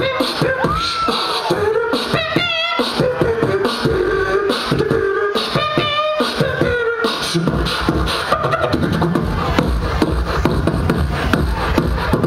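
Live beatboxing through a concert PA: rapid mouth-made drum hits, with warbling pitched vocal sounds laid over them at times. From a little past halfway, a steadier deep bass beat comes in.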